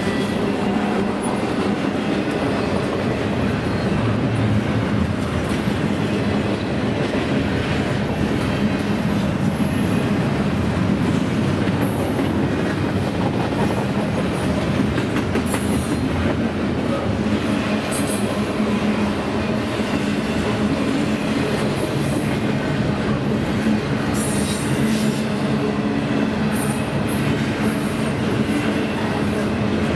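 Double-stack container well cars of a freight train rolling past on the rails: a steady rumble and clatter of steel wheels over the track, with brief high-pitched wheel squeals several times.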